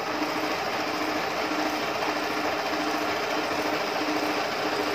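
Janome 5000 sewing machine starting up and stitching at a steady speed, a motor hum with a regular pulsing from the needle's stitch cycle.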